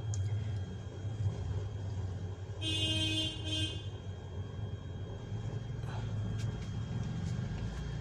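Low, steady traffic rumble with a vehicle horn sounding once, a steady tone held for about a second, a little under three seconds in.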